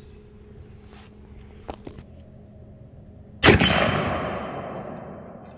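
A single AR-15 rifle shot about three and a half seconds in, a sharp crack followed by a long echo fading away over about two seconds. A couple of faint clicks come before it.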